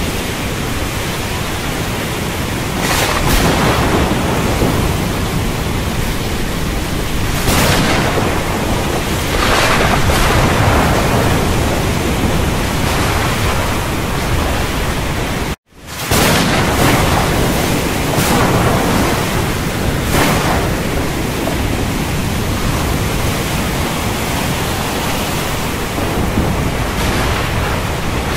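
Thunderstorm ambience: a steady, dense rush of storm noise with deep rumbles of thunder, swelling up every few seconds. The sound drops out completely for an instant about halfway through.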